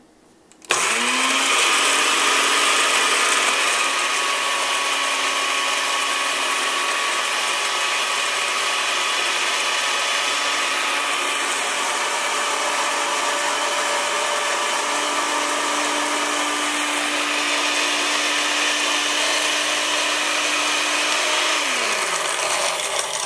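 Countertop blender grinding graham crackers into crumbs: the motor starts about a second in with a rising whine, runs steadily, then winds down and stops near the end.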